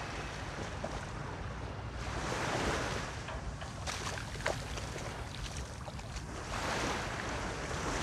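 Shallow surf washing up the sand and fizzing back, swelling twice as waves come in, over a low rumble of wind on the microphone. A short sharp click comes about halfway through.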